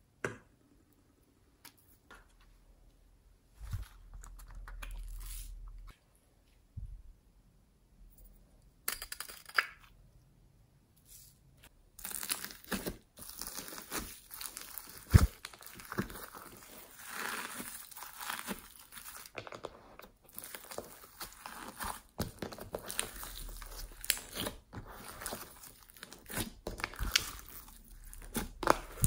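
Glittery homemade slime in a plastic tub being handled: a few scattered taps and rustles as toppings go on, then from about twelve seconds in, hands pressing and kneading the slime with foam beads in it, a dense run of small pops, clicks and sticky crackle.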